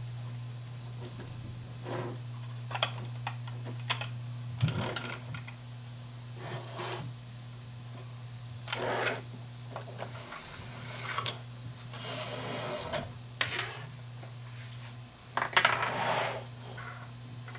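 Small plastic fittings and an aluminium curtain track clicking and clattering on a wooden tabletop as they are handled and fitted together, in scattered short knocks and brief rattles. A steady low hum runs underneath.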